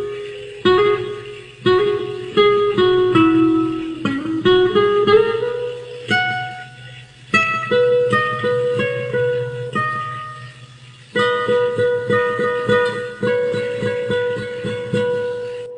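Guitar music: a run of plucked notes, each one struck and ringing out as it fades, with no singing.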